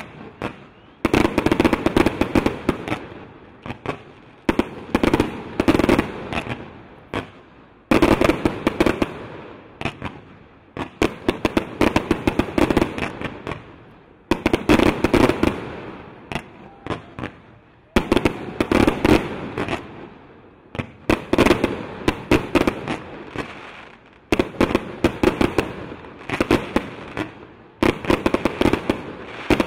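Aerial fireworks display: salvo after salvo of shells bursting. Each salvo is a rapid string of sharp bangs that fades away before the next begins, about every three to four seconds.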